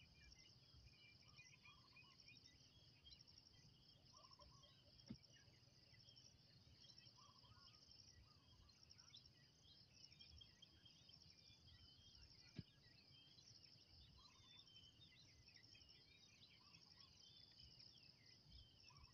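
Faint outdoor ambience of a steady insect chorus with dense high chirping, and short calls repeating every couple of seconds. Two faint sharp knocks stand out, about five seconds in and again near twelve and a half seconds.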